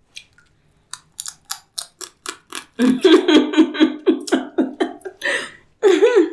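A quick, even run of sharp clicks, about four a second. About three seconds in, a woman's voice joins in short, regular rhythmic pulses, and another voiced sound follows near the end.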